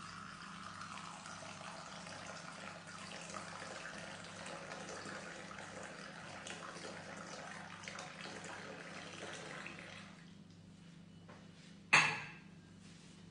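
A thin stream of liquid poured into a ceramic mug onto dark powder, a steady splashing fill that stops about ten seconds in. Near the end comes one sharp, loud knock with a short ring.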